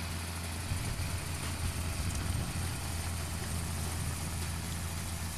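Farm tractor's diesel engine running steadily with a low hum, the sound turning rougher about a second in.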